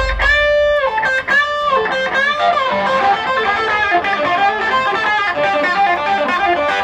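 Electric guitar solo played live through a PA: a few held notes bent up in pitch in the first second or so, then quick runs of notes.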